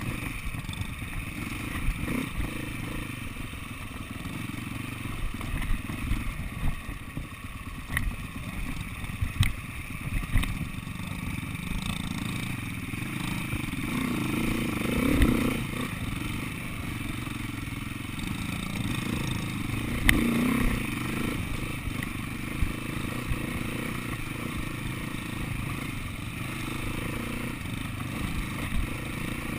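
SWM 300RS enduro motorcycle's single-cylinder four-stroke engine running at low speed over rough dirt, with occasional knocks and clatter from the bike going over bumps.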